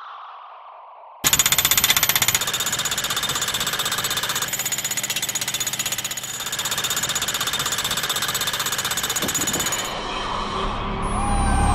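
Makita demolition hammer running and hammering rapidly. It starts suddenly about a second in, eases briefly about halfway, and stops near the end.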